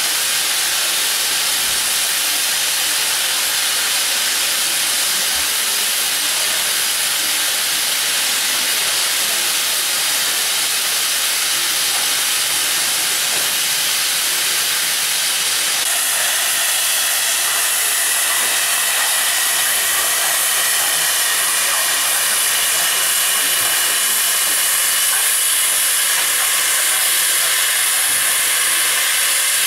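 Steam hissing steadily from the standing FS Gr.625 steam locomotive, a loud even hiss whose tone shifts a little about halfway through.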